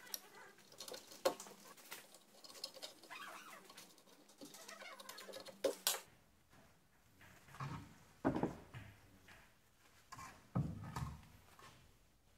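Light metallic clicks and clinks of loose bolts and a rear brake caliper handled by gloved hands, with several heavier knocks in the second half as the caliper is worked off the pads and disc.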